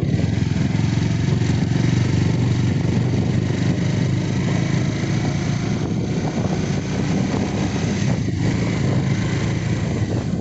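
Motorcycle engine running steadily while riding along, with a constant hiss of wind and road noise over it.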